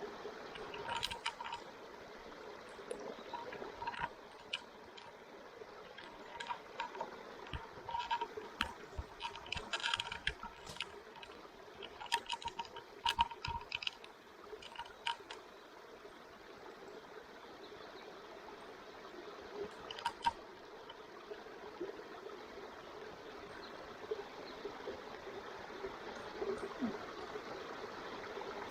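Wood campfire crackling, with irregular sharp pops that come thick for the first half and then thin out, over a steady rushing hiss.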